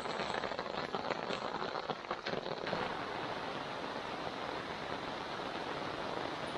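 Rain falling steadily on a tarp shelter and the ground around it, with scattered drops ticking close by during the first few seconds. About three seconds in, the sound changes to a smoother, even rush of rain.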